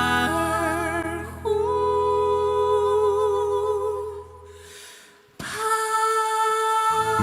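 A high male voice singing long, wordless held notes with vibrato over soft, sustained accompaniment, as the song closes. It fades out about four to five seconds in, and a new long note starts a moment later.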